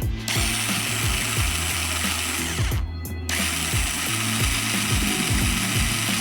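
Cordless screwdriver with a drill bit fitted, drilling into plywood. Its geared motor runs, stops briefly about three seconds in, then runs again.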